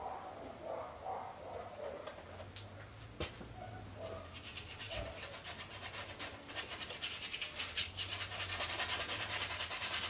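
A paintbrush scrubbing oil paint onto canvas in quick, repeated scratchy strokes. The strokes start about four seconds in and grow louder. Earlier there are only a couple of faint clicks.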